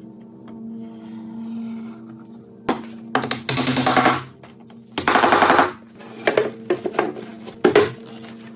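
A woodworking power tool running in two bursts of about a second each, each a fast rattling run of strokes, with a few separate knocks between and after them.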